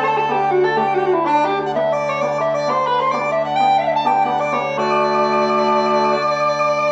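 Uilleann pipes played solo: a quick run of chanter melody notes over the steady hum of the drones, settling onto a long held note about five seconds in.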